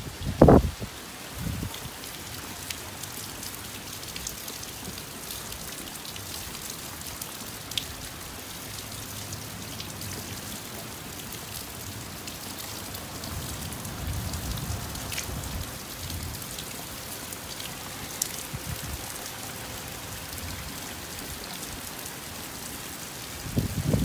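Steady summer rain falling in a continuous hiss, with individual drops ticking now and then. A couple of sharp, loud low thumps come in the first two seconds and a few more near the end.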